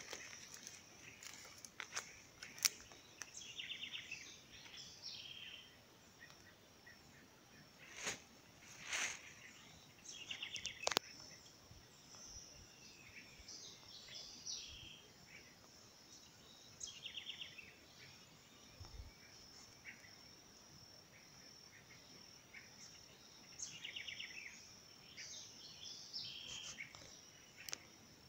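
Natural ambience in a palm grove: a steady high-pitched insect drone with birds calling over it, including a short rapid trill repeated several times. A few sharp clicks stand out, the loudest about a third of the way through.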